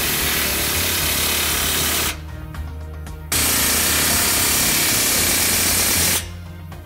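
Pneumatic impact wrench hammering on the battery box's mounting bolts in two runs: about two seconds, then, after a short break, about three seconds.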